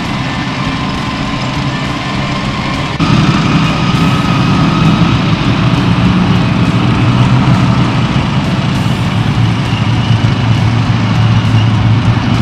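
Diesel engines and steel tracks of several K9 self-propelled howitzers running as they drive past, a steady low rumble with faint high track squeal; the sound jumps louder about three seconds in.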